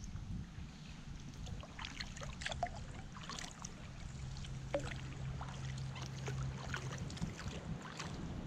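Kayak paddling on a calm river: water dripping and trickling off the paddle blades in many small ticks and splashes, over low wind noise on the microphone.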